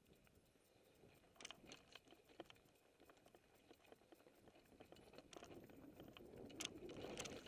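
Mountain bike rolling down a rocky dirt trail: faint crunching of tyres over loose stones, with scattered sharp clicks and rattles. It grows louder toward the end as the descent speeds up.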